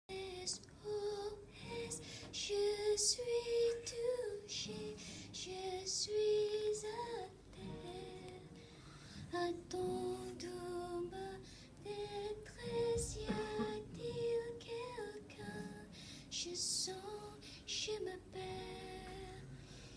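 Soft female singing of a slow melody, with held notes.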